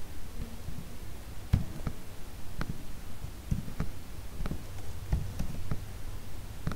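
Computer keyboard keys clicking as code is typed: a dozen or so separate taps at irregular spacing over a low steady hum.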